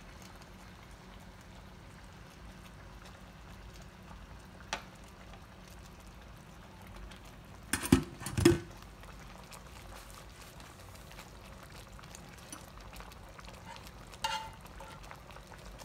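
Honey garlic glaze simmering around chicken pieces in an electric skillet, a steady low bubbling. About halfway through come two loud knocks half a second apart, with a lighter click before them and another near the end.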